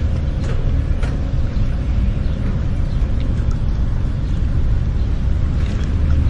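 Harbor marina ambience: a steady low rumble with a faint continuous hum, dotted with small scattered clicks and chirps.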